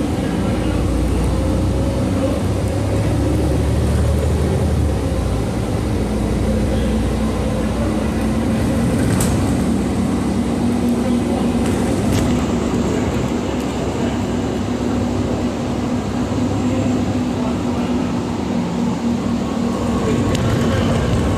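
Steady engine and road noise inside a moving transit bus, with a low hum and two light clicks about halfway through.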